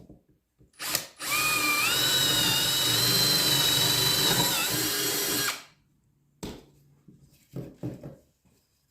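Drill press motor switched on, whining up to speed and running for about four seconds as a bit bores a test hole in scrap plywood, then shut off. A knock comes just before it starts, and a few short knocks of handling the wood come near the end.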